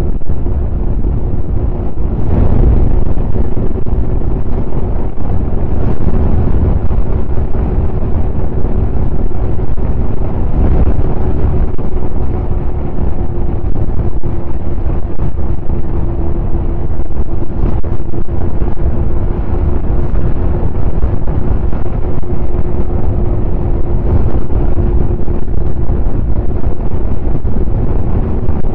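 Snowmobile engine running at a steady pace with a steady drone, under heavy wind rumble on the microphone.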